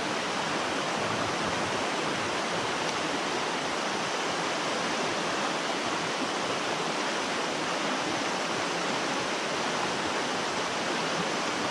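Creek water rushing steadily over a rocky ledge into a pool, a constant even hiss.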